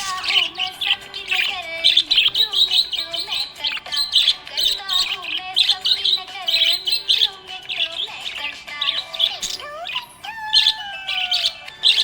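Budgerigar chirping and warbling in a rapid, unbroken stream of short chirps, with music playing underneath.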